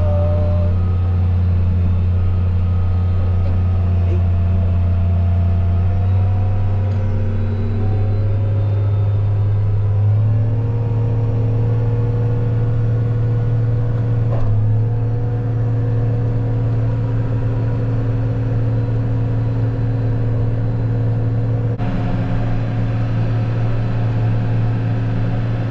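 A vehicle engine running steadily with a deep hum. Its pitch steps up twice in the first half and then holds.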